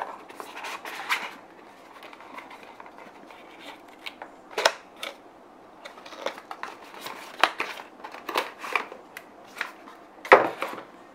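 Cardboard watch packaging handled by hand: the white box and its inner card tray slide, rub and tap in irregular clicks and rustles, with a few sharper knocks, the loudest near the end.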